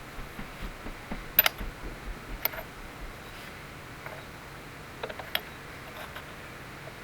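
Scattered sharp clicks and clinks of small metal parts and tools being handled, over a faint steady machine-shop background. The clicks come in a few small clusters: one about a second and a half in, one about two and a half seconds in, and one just after five seconds.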